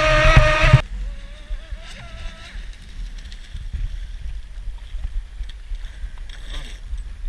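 Homemade RC speedboat's brushless electric motor running at speed, a loud high whine with the hull knocking against the waves, cutting off abruptly under a second in. Then wind and choppy water on the microphone, with the motor's faint wavering whine from the boat out on the water.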